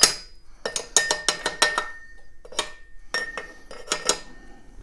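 Hammer lightly tapping the steel column and its collar on a WEN 5-speed benchtop drill press, about fifteen sharp metallic taps with a short ring, coming in quick runs.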